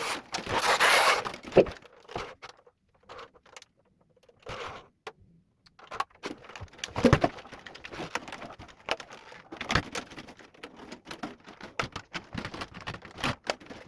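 Wire sculpture being handled and set on its feet, giving a rustling burst at the start, then scattered short clicks and taps of the wire, mostly in the second half.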